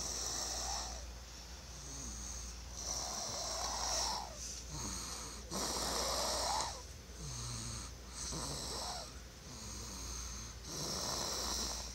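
A one-year-old child snoring loudly in sleep: five raspy snores, about two and a half seconds apart.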